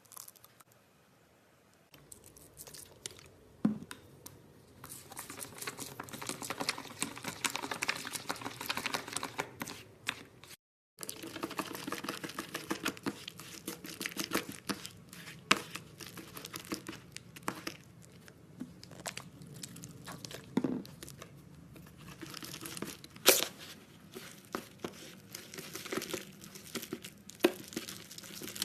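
Slime being squeezed and stretched by hand, making a dense stream of sticky crackling and popping clicks, starting about two seconds in. A brief gap about eleven seconds in, and one sharp loud pop a little after twenty seconds.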